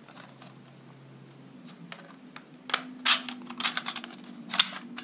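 Plastic clicks and scraping from a CSJ S162 drone's remote controller being handled and its fold-out phone holder being pulled open. Faint at first, then a quick run of clicks from about two and a half seconds in, with the sharpest snap near the end.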